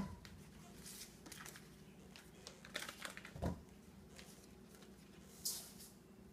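Faint handling sounds over a low steady hum: a paper butter wrapper rustling with light clicks, a soft thud about three and a half seconds in, and a short hiss near the end as sugar starts pouring into a stainless steel mixing bowl.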